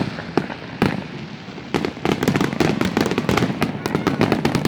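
Fireworks display: sharp bangs and crackling over a low rumble, a few separate reports at first, then a dense rapid barrage from about two seconds in.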